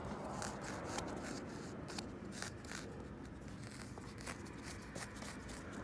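Faint, irregular light clicks and rubbing of hard plastic as a hand turns the repaired plastic caster wheel on a cooler box, over a low steady hum.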